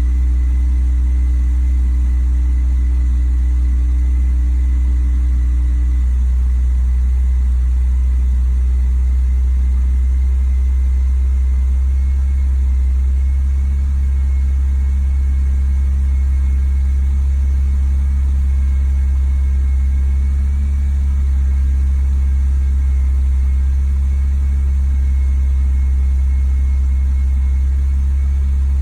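BMW E46 330Ci's 3.0-litre straight-six idling with its MAF sensor unplugged, a steady low drone whose note shifts slightly about twelve seconds in. The owner reports a high, rough idle and almost no power, and suspects fuel or oil getting into the red-hot catalytic converters.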